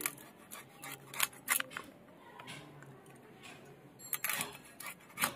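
Small hilsa being scaled and cut on a boti blade: a run of short, sharp scraping strokes of fish against metal, coming irregularly every half second or so.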